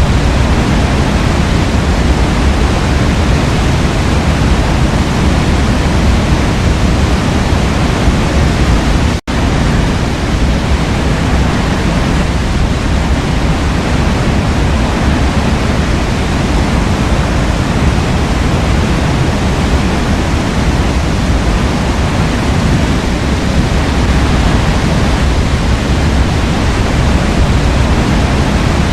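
Waterfall rushing in a steady, dense roar of falling water. The sound cuts out for an instant about nine seconds in, then carries on unchanged.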